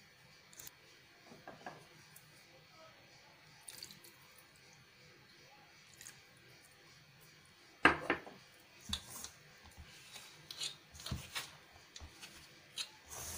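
Hands mixing a stiff, crumbly flour-and-oil dough in a steel bowl, making faint rubbing and scraping, with water poured in from a small cup. A single sharp knock comes about eight seconds in, followed by a run of small clicks and scrapes.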